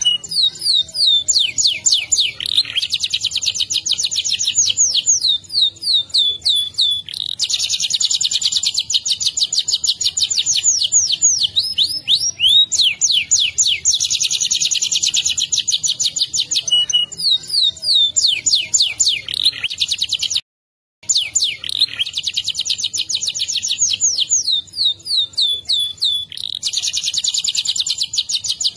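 Domestic canary singing a long rolling song: fast trills of rapidly repeated high notes, one trill running into the next every second or two. The song cuts out completely for about half a second a little past twenty seconds in.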